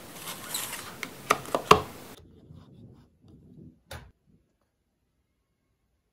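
Phone handled on a wooden tabletop: a brief rustle, then three sharp clicks in quick succession about a second and a half in, the last the loudest, and one more click just before four seconds.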